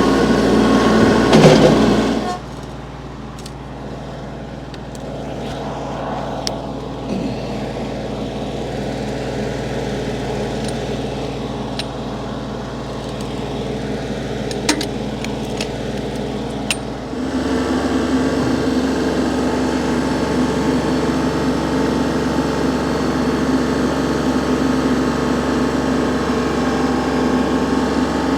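An engine running steadily. It drops to a quieter note about two seconds in, with a few light knocks over it, then comes back louder on a different note after about fifteen more seconds.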